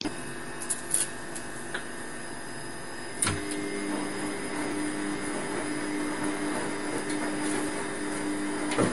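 Steady mechanical hum and hiss of a running machine, with a few light clicks; after a knock about three seconds in, a stronger low hum joins and holds.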